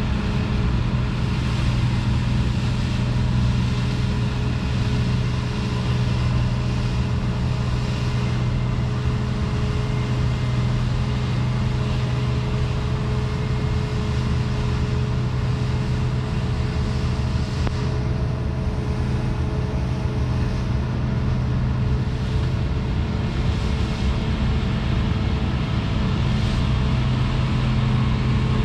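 Claas Lexion 430 combine harvester working, a steady mechanical drone with a constant low hum, growing slightly louder near the end.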